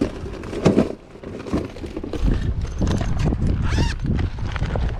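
Fishing tackle being rummaged through: irregular clicks, knocks and rustles of lures and plastic cases, over a low rumble, with a short squeak about four seconds in.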